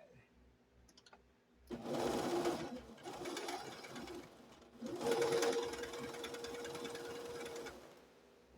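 Sewing machine stitching through a quilt in two runs of about three seconds each, the second with a steady motor whine.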